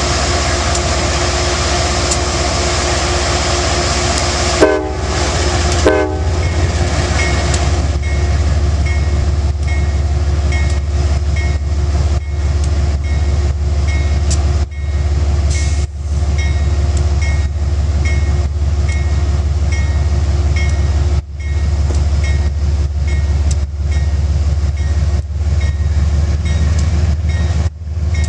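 Amtrak GE Genesis P32AC-DM diesel locomotive running close by as the train pulls out: a steady engine drone, two short horn blasts about five seconds in, then wheels clicking regularly over the rail as the train gets moving.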